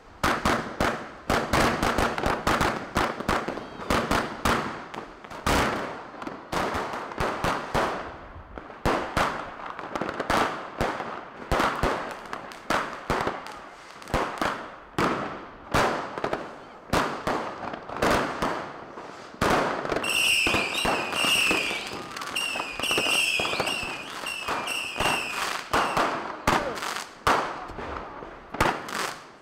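New Year's fireworks and firecrackers going off in quick, irregular succession, sharp bangs overlapping one another. About twenty seconds in, a run of short, high, slightly falling whistles repeats for several seconds over the bangs.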